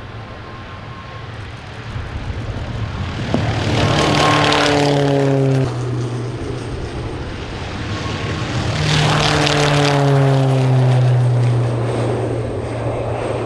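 Pilatus PC-9/A single-engine turboprops at takeoff power, heard as two loud passes. Each time the engine and propeller note slides down in pitch as the aircraft goes by.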